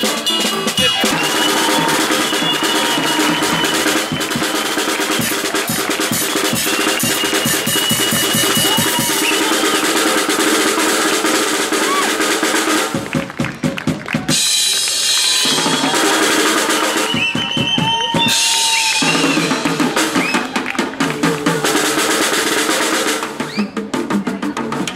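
Acoustic drum kit played fast and hard, with snare rolls, bass drum and cymbals. The drumming thins out briefly about halfway through.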